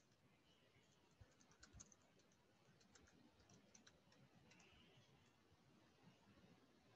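Very faint typing on a computer keyboard: soft, irregular key clicks spread over several seconds.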